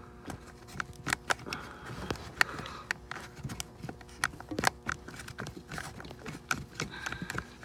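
Irregular clicks and light knocks of a quick-disconnect release tool being worked into place around a plastic coolant line fitting, with a faint steady hum underneath.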